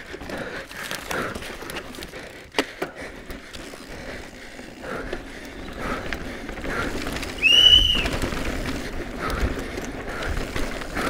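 E-mountain bike (Cube Stereo Hybrid) descending a dirt trail at race speed: steady tyre roar on loose dirt, with the frame and parts rattling and knocking over roots and rocks. About 7.5 seconds in there is a short, loud, high squeal over heavier thumps.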